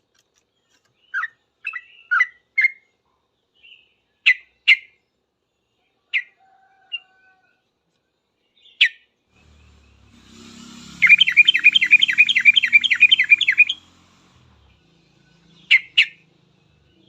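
Sooty-headed bulbul (trucukan) giving scattered short, sharp chirps. About eleven seconds in it breaks into a rapid run of evenly repeated notes, about five a second for nearly three seconds: the fast 'ngropel' song.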